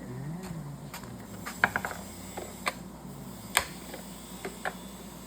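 Scattered light clicks and taps of hand tools and chainsaw parts being handled at the start of a Stihl 400 teardown, over a steady low hum.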